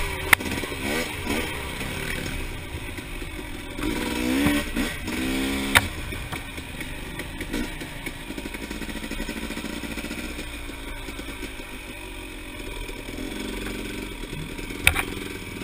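Dirt bike engine under way on a trail, its pitch rising and falling as the throttle opens and closes, with quick revs up through the gears about four to five seconds in. Three sharp knocks stand out, at the start, near the middle and near the end.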